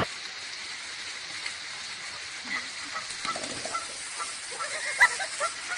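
Canada goose honking in short repeated calls, faint at first and louder from about five seconds in, over a steady hiss, with one sharp click about five seconds in.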